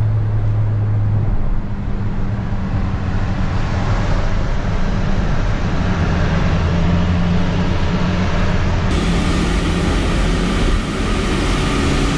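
Pickup truck driving on a rain-soaked road, heard from inside the cab: a steady engine hum under the hiss of tyres on wet pavement. About nine seconds in the hiss suddenly turns brighter.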